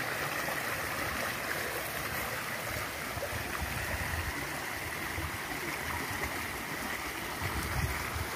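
Small forest creek running over a shallow riffle: a steady, continuous rush of water.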